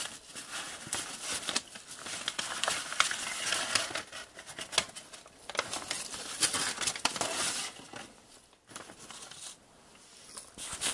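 Sheets of old letter paper rustling and crinkling as they are handled, with many small crackles. It dies down near the end.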